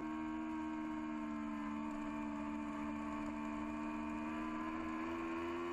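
Yamaha R6 sportbike's inline-four engine running at a steady note under way, its pitch creeping slightly higher near the end.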